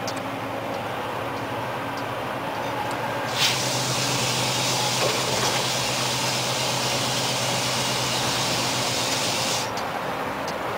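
Scania 124L 420 truck heard from inside the cab while driving: a steady engine drone with road noise. About three seconds in, a click starts a loud high hiss that runs for about six seconds and then stops.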